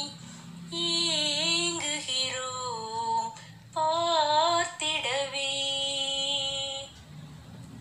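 A woman singing a Tamil song solo: two long phrases with held, wavering notes, the second ending about seven seconds in.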